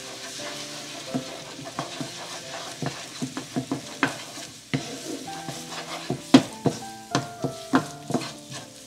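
Wooden spatula stirring and scraping a thickening flour-and-stock roux with sautéed onions and chilies in a non-stick skillet, with a light sizzle and irregular knocks of the spatula against the pan, coming faster and louder in the second half.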